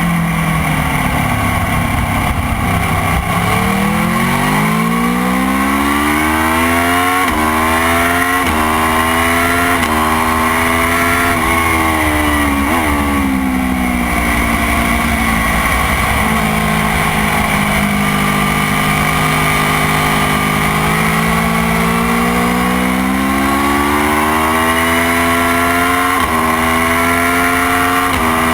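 Motorcycle engine under hard acceleration, revs climbing and dropping sharply at each quick upshift, roughly a second apart. It then winds down as the bike slows and changes down, holds steady, and climbs through the gears again near the end.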